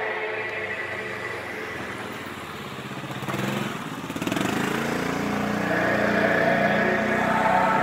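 A motor vehicle's engine passes on the street, rising about three seconds in and then fading. Choral singing fades under it and swells back in during the second half.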